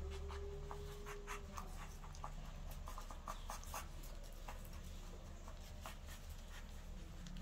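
Newborn puppies suckling at their mother's teats: a run of small, irregular wet clicks and smacks, several a second.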